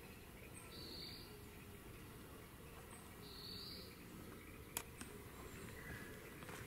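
Quiet outdoor ambience: a short, high chirp repeating about every two and a half seconds over a low steady rumble, with one sharp click a little past the middle.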